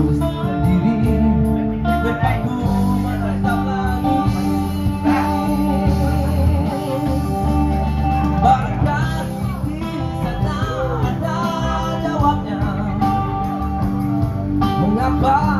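A man singing live into a handheld microphone, amplified, over instrumental musical accompaniment.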